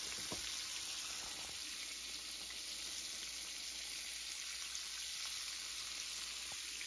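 Breaded pork chops shallow-frying in hot oil in a cast-iron skillet over medium-high heat, a steady sizzle.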